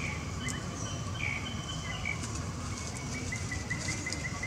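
Forest ambience: a steady insect drone with a bird chirping, ending in a run of short repeated notes, about four a second, in the second half.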